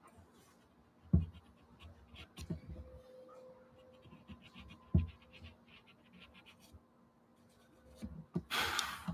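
Pastel pencil scratching on gesso-coated watercolour paper in short strokes, with two sharp low knocks about one and five seconds in and a louder, longer scratching rush near the end.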